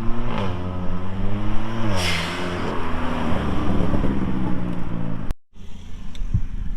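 Turbocharged four-cylinder of a JB4-tuned Kia Forte GT revved twice, the pitch climbing and falling back each time. A short hiss comes at the top of the second rev, the GFB blow-off valve venting. After a cut near the end, the engine runs steadily at a lower pitch.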